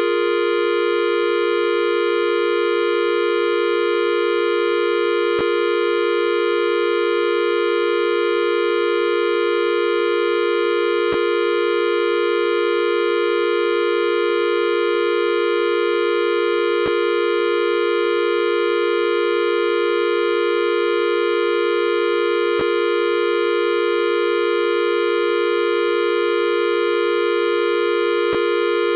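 A steady electronic buzzing tone held at one pitch without change, with a faint click about every six seconds.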